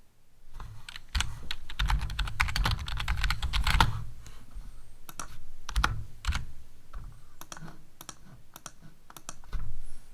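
Typing on a computer keyboard. A quick run of keystrokes comes for the first few seconds, then slower, scattered keystrokes follow, with a short louder cluster near the end.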